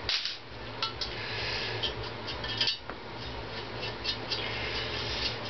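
Steel tool clinking and scraping against a Honda CX500's aluminium crankcase as a bolt is worked out: scattered light metallic clicks with stretches of rasping.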